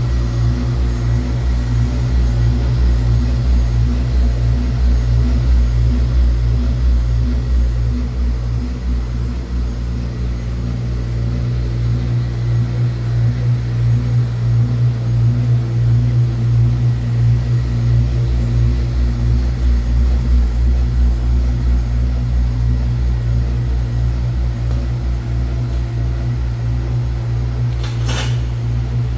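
Industrial quilt and blanket washing machine running: a steady electric-motor hum with a deep drone, and a brief sharp click near the end.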